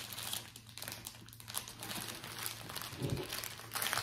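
Plastic bags of diamond-painting drills crinkling as they are handled and folded, an irregular run of small crackles.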